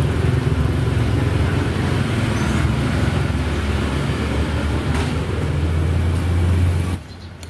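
Steady low rumble of road traffic noise that cuts off abruptly near the end.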